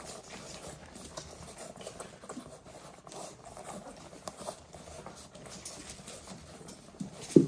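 A litter of Dalmatian puppies nursing from their mother: a continuous patter of small sucking, smacking and shuffling noises, with one short, louder sound near the end.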